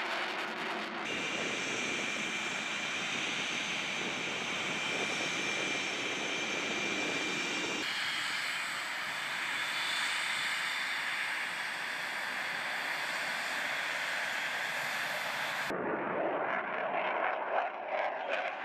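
Jet noise from F/A-18 Hornets' twin turbofan engines: a steady rush with thin high whine tones. It is cut between several takes, changing suddenly about a second in, near the middle, and shortly before the end, where it turns rougher and more uneven.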